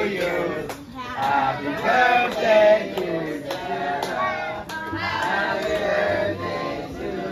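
Several voices singing along with music that has a regular beat.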